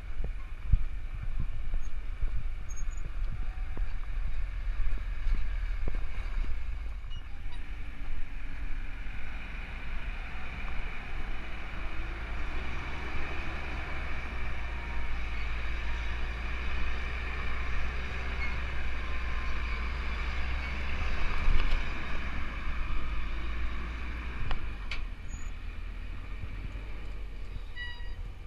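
Iveco Daily 4x4 truck crawling over a rocky off-road track: a steady low rumble of engine and tyres on stones, with wind buffeting the microphone.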